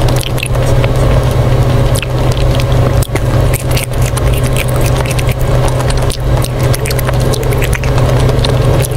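Close-miked chewing of a chocolate-coated ice cream bar, with many short crisp crackles from the coating, over a steady low hum.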